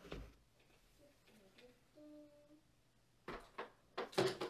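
Hand embroidery: thread and needle drawn through fabric stretched in a hoop, giving a few short rasps in the last second and a half. A faint brief hum is heard a couple of seconds in.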